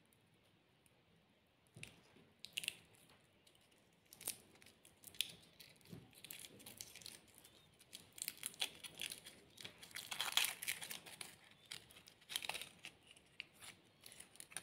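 Foil wrapper being peeled and crinkled off a chocolate by hand. The crackling is quiet and uneven; it starts about two seconds in and is busiest around the middle.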